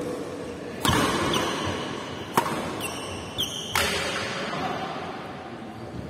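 Badminton racket strings striking a shuttlecock three times, about a second and a half apart, each hit echoing in the hall. A couple of short shoe squeaks on the court floor come between the second and third hits.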